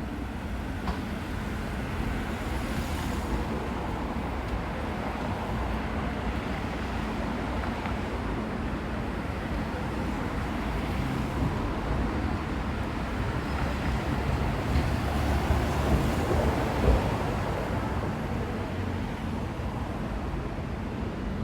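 Steady outdoor city noise, mostly passing road traffic, swelling a little about three-quarters of the way through.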